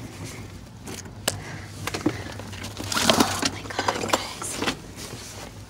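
Rummaging through dumpster contents: cardboard boxes and plastic bags being shifted, giving scattered knocks and rustles with a busier stretch about three seconds in, over a low steady hum.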